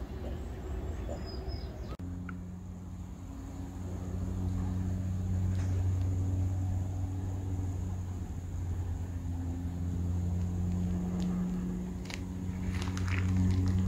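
A steady low electrical or machine hum with a faint high whine, and a few light crackles near the end.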